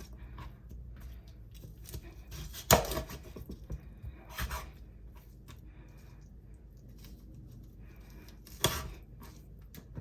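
Knife chopping quail into pieces on a cutting board: a few sharp, separate chops, the loudest about three seconds in, another a second and a half later and one more near the end, with lighter knocks and taps between.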